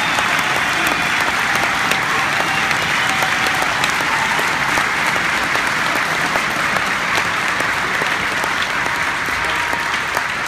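Large arena crowd applauding steadily and without a break.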